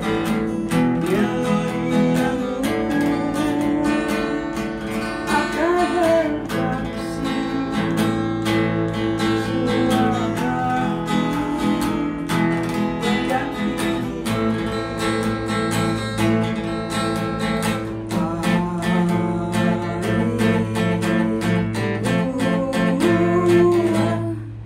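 Acoustic guitar strummed steadily in chords while a man sings over it; guitar and voice break off near the end.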